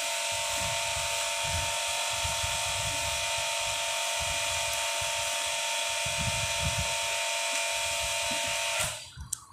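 Steady whirring machine hum with a hiss, cutting off suddenly near the end, over soft, irregular low knocks from a screwdriver working screws out of a soda-dispenser valve body.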